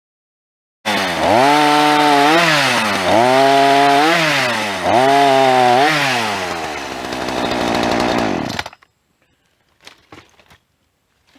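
Chainsaw cutting wood. It starts suddenly about a second in, and its engine pitch sags and recovers three times as it works through the cut. It then runs at a lower, rougher pitch and stops abruptly; a few faint clicks follow near the end.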